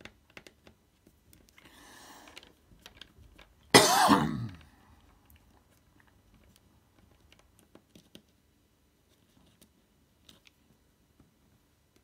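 Small screwdriver clicking and scraping on the tiny screws of a netbook's metal frame, with a loud cough a little under a second long about four seconds in.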